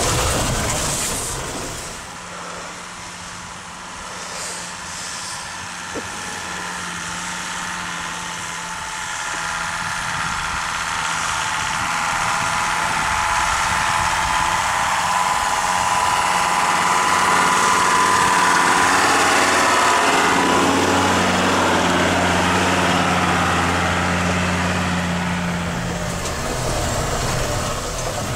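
Mercedes-Benz T1 4x4 van's engine running as it drives through snow. It grows steadily louder over about fifteen seconds, then eases off near the end.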